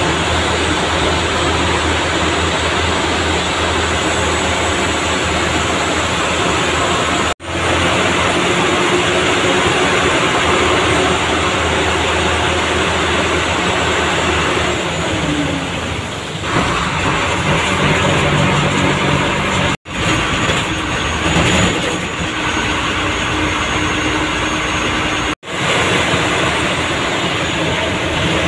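Diesel engine of an MSRTC state transport bus running under way, with tyre noise on a wet road, heard from inside the driver's cab. The engine note shifts about halfway through, and the sound drops out for a moment three times.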